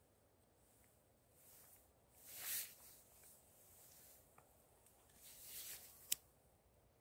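Faint rustling of clothing and movement on leaf litter as a small tin burner is opened and set up, then one sharp click about six seconds in, just before the burner is lit.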